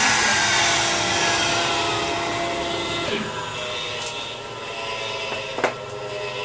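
Momus CNC X2S router spindle winding down at the end of a cut: its whine falls in pitch and the noise fades over the first few seconds, leaving a lower steady hum. A couple of light clicks near the end.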